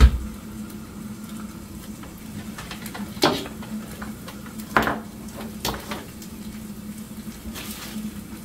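An egg frying in a skillet, sizzling steadily. A heavy thump right at the start as the toaster lever is pushed down, and a few sharp clicks in the middle.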